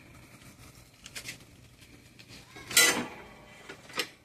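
Work sounds from handling a bundle of piassava broom fibres: low rustling, a sharp scraping clatter about three seconds in, and a short knock near the end.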